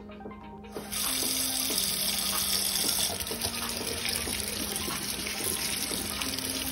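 Tap water running in a steady stream onto strawberries in a perforated stainless-steel colander, starting about a second in, over background music.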